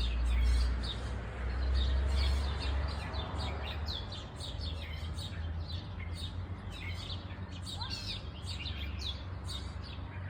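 Small birds chirping in many quick, short high notes, over a low rumble that is strongest for the first few seconds and then eases.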